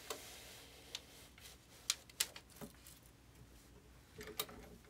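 Faint handling sounds at a heat press: paper sheets and a towel being pushed into place on the platen, with a few light clicks and taps spread through.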